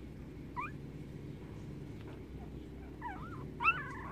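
Young puppies whining and squeaking: one short rising whimper near the start, then several overlapping high whines from about three seconds in, the loudest near the end.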